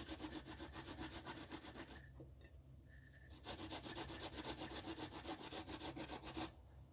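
Peeled ginger root rubbed hard on a hand grater of the kind used for cassava, rasping in quick, regular strokes. The grating pauses for about a second and a half near the middle, then resumes and stops shortly before the end.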